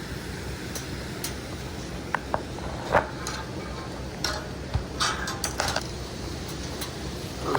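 A steady low rushing noise with a scattering of light clicks and clinks, the sharpest about three seconds in.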